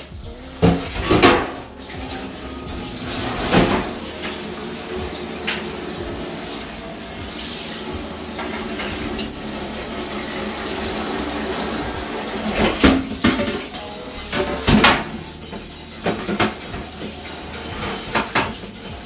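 Washing up at a kitchen sink: a tap runs steadily while dishes and pans clink and knock, with a few sharp clatters near the start and a cluster more towards the end.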